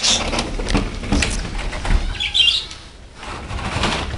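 Rustling and knocking handling noises, with a short high bird-like chirp about halfway through.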